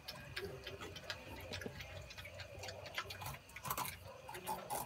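Porcupines gnawing and chewing food, a run of irregular crisp clicks and crunches.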